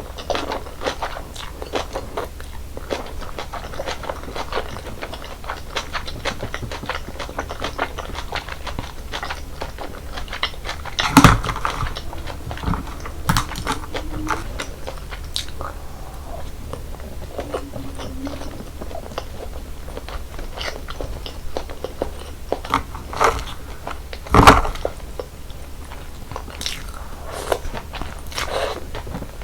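Close-miked eating of naengmyeon (cold noodles in slushy iced broth): steady chewing with crisp crunching and small clicks, broken by two louder sharp knocks, about 11 seconds in and near 24 seconds.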